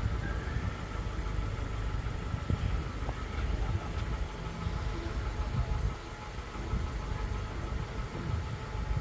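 Outdoor street ambience: an uneven low rumble of traffic or engine noise, with a faint steady hum above it.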